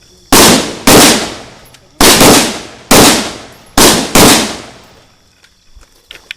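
About seven rifle shots, most in quick pairs, each followed by a short echoing decay.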